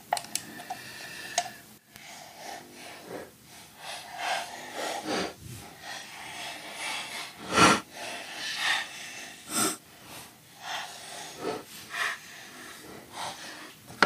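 Precision screwdriver with a Torx bit turning small screws out of a plastic trackball housing: a run of short, soft scraping and squeaky rasps, with a few sharper clicks of the driver and housing being handled.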